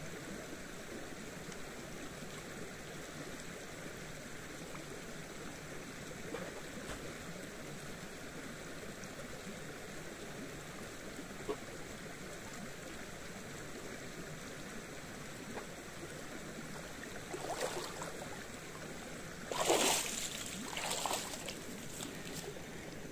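Steady running water, like a stream, with three short louder noises near the end, the middle one loudest.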